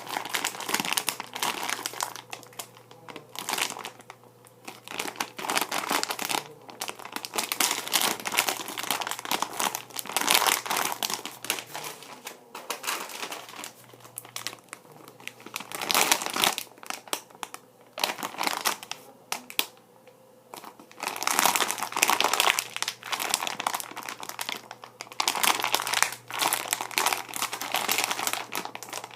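Plastic packaging crinkling and rustling as it is handled, in irregular bursts with a few short pauses.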